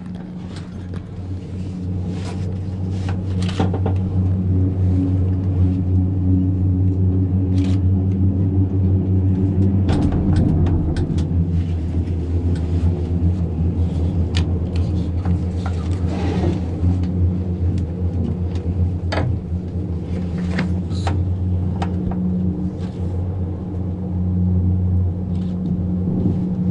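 Steady low rumble and hum inside a moving gondola lift cabin, growing louder over the first few seconds, with scattered short clicks and creaks from the cabin.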